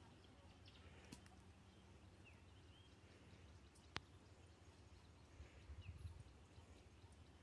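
Near silence: faint outdoor ambience with a few faint bird chirps and one sharp click about four seconds in.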